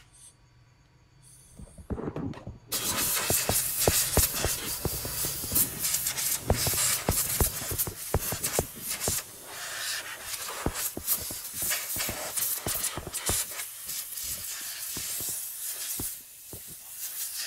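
Aerosol spray can hissing as it is sprayed to wash spilled coolant off a scooter radiator. The spray starts about two seconds in, with many sharp crackles through it and a brief lull near the end.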